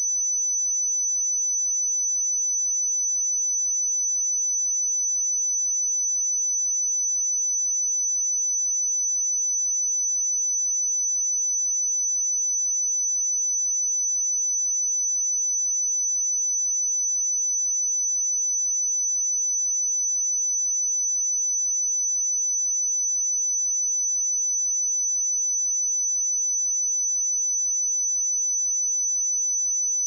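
A pure 6002 Hz sine-wave test tone, a single high-pitched, steady whistle held without change.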